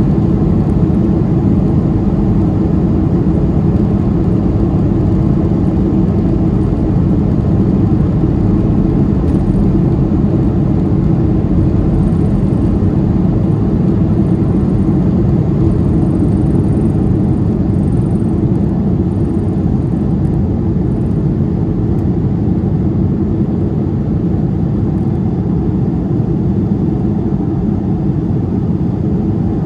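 Boeing 737-200's Pratt & Whitney JT8D-9A low-bypass turbofans at takeoff power, heard from inside the cabin over the wing as a loud, steady, deep engine noise through the takeoff roll and initial climb.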